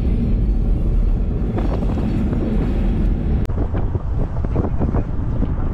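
Car driving along a road: a steady low rumble with wind buffeting the microphone. The sound changes abruptly about halfway through, turning thinner and more flickering.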